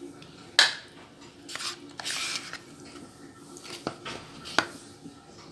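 A metal spoon stirring and breaking up thick curd in a bowl. There is a sharp tap of the spoon on the bowl about half a second in, then soft wet scraping and squishing, and two more light taps later on.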